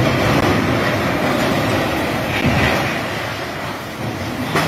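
Loud continuous rumbling roar with no clear rhythm or pitch.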